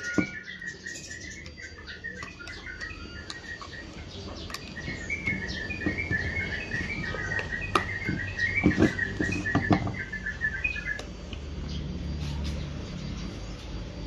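Bird calls: rapid strings of short chirps that break off for a couple of seconds, resume, and stop about eleven seconds in. A few knocks sound among them near the middle.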